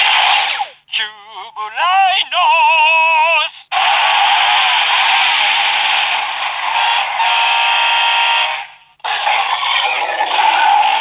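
Electronic sound effects played by a Zyuoh The Light train-mecha toy through its small built-in speaker, thin with little bass. The sound comes in short separate bursts: a warbling, rising tone about a second in, then a longer noisy run with music, and a last burst near the end.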